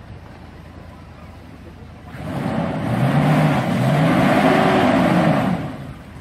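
Toyota Land Cruiser 100 revving up while its wheels spin in a shallow riverbed, churning and spraying water. The revs start about two seconds in, climb and fall over about three and a half seconds, then drop away near the end.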